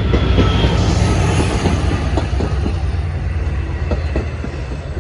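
Long Island Rail Road diesel-hauled train with bilevel coaches rolling close by: a loud, steady low rumble with scattered irregular clicks of wheels over the rails.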